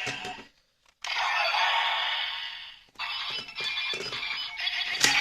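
Electronic sound effects and music from a Kamen Rider Ridewatch toy's small speaker. It breaks off about half a second in, then starts again about a second in and again at about three seconds.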